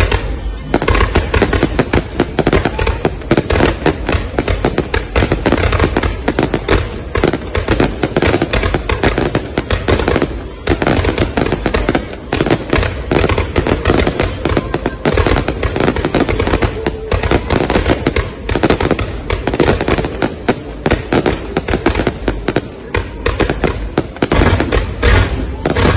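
Fireworks display: a dense, continuous barrage of rapid bangs and crackles that hardly lets up.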